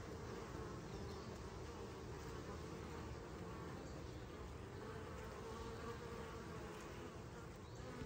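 Honeybees buzzing: a faint, steady hum.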